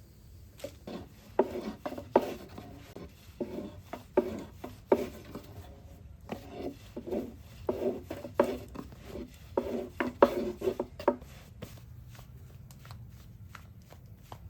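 A run of irregular dull knocks with rubbing strokes between them, about two a second, stopping about eleven seconds in.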